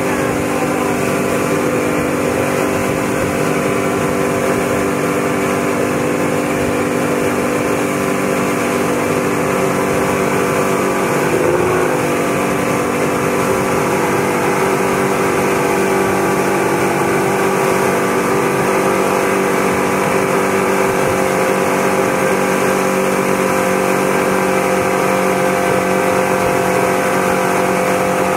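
Motorboat engine running steadily at speed under the load of towing a wakeboarder, over the rush of the boat's wake. The engine note wavers briefly about twelve seconds in.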